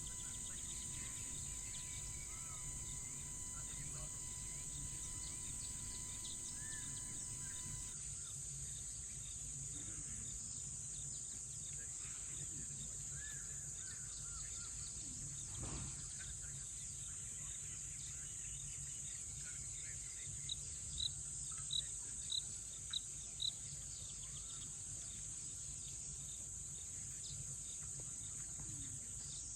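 African bush nature soundscape: a steady, high-pitched insect chorus of crickets over a low background rumble, with scattered bird calls. About twenty seconds in comes a quick run of six short high chirps, the loudest sounds here.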